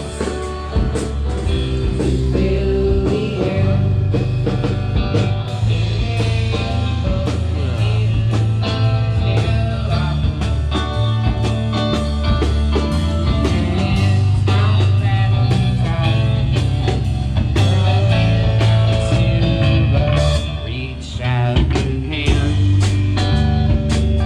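A live band playing a bluesy rock song, with electric guitar, bass and drum kit, and some singing.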